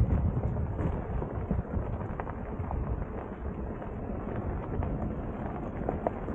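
All-terrain tires rolling over a gravel road: a steady low rumble of tread on loose stone, with scattered small clicks of pebbles kicked up, heard from a camera mounted low on the outside of the car.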